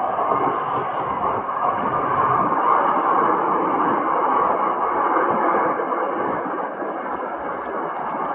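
Loud, steady, harsh roar of aircraft engines on the airfield, distorted by the microphone, swelling a little a couple of seconds in.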